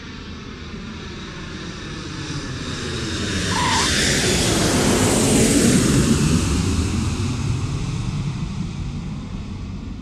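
Airplane passing close overhead on its landing approach: the engine noise swells to a peak about five or six seconds in, falls in pitch as it goes by, then fades away.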